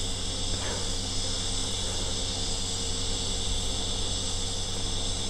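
TIG welding arc burning steadily while laying an open root pass in V-grooved 10 mm plate: a continuous even hiss with a low hum underneath.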